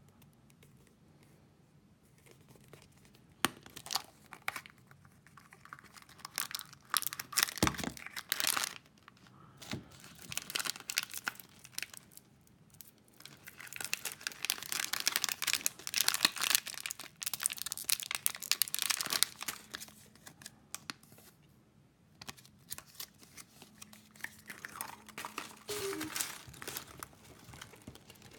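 Foil and plastic wrappers crinkling and tearing in bursts as surprise eggs and their plastic toy capsules are unwrapped by hand, with a few sharp plastic clicks.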